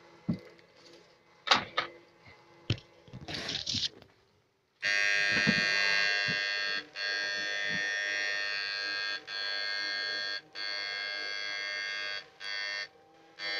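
Battery-powered Susan 1030SMP electric fish stunner buzzing loudly while switched on: a steady, high, many-toned buzz that starts about five seconds in and breaks off for short moments several times. Before it come a few sharp knocks and a brief rustle.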